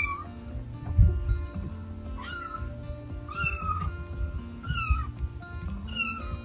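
Tabby kitten meowing over and over: a string of high calls, each rising then falling, about a second apart. A low thump sounds about a second in.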